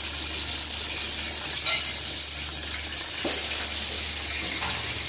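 Hot oil frying a whole sea bream in a pan: a steady sizzling hiss with a couple of sharper pops.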